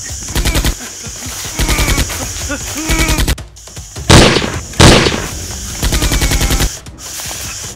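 Automatic gunfire in four short rapid bursts, with two single loud shots about four and five seconds in.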